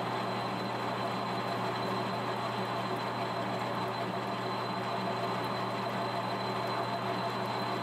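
Monarch metal lathe running steadily, a constant machine drone with a low hum.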